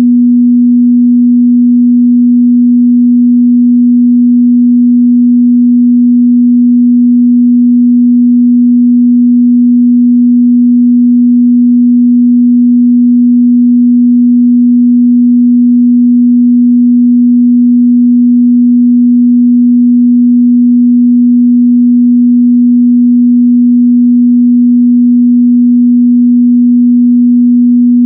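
Pure 243 Hz sine-wave test tone, a single steady mid-bass hum held without change.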